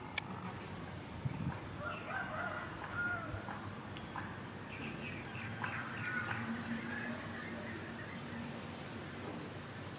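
Birds chirping and calling in short bursts, with a few sharp clicks among them.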